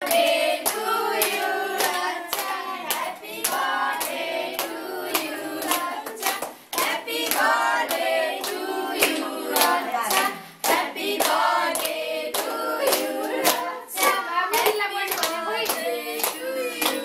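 A group of people singing together while clapping in time, about two claps a second.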